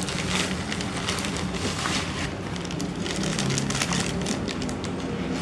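Thin clear plastic zip bag crinkling and rustling in small hands as it is emptied of kinetic sand, with many irregular crackles.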